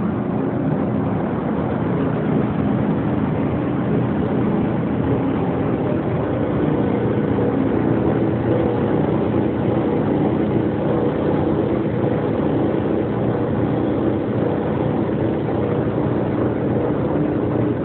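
Griffin dual-high roll-forming machine running steadily, its drive and rollers making a constant mechanical drone with a few held hum tones as formed sheet metal moves through.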